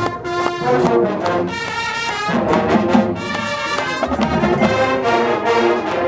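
High school marching band playing, its brass section carrying loud held chords.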